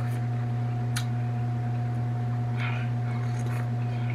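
Steady low hum with a fainter higher tone above it. A few faint light clicks sound over it, one about a second in and more near the end.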